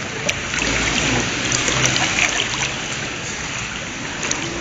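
Pool water lapping and splashing as a toddler paddles in an inflatable swim ring, a steady wash of water with a few small splashes.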